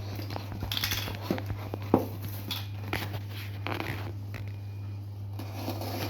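Packaging being handled: scattered rustles, clicks and knocks, the sharpest knock about two seconds in, over a steady low hum.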